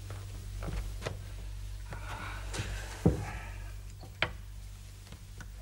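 Cigarette being stubbed out in a glass ashtray: a few light knocks and clicks, with a dull thump about three seconds in and a sharp glassy click about a second later, over a low steady hum.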